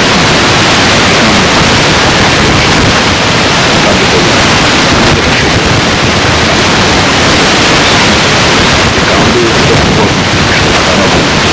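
Loud, steady hiss of a noisy recording, with faint traces of a voice buried beneath it.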